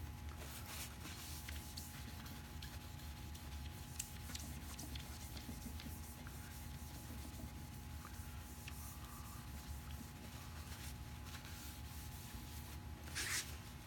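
Paper towel wiping over the wet, varnished surface of a wooden half-hull model to dry it after wet sanding: faint, scattered scuffing strokes over a steady low hum. A brief hiss comes near the end.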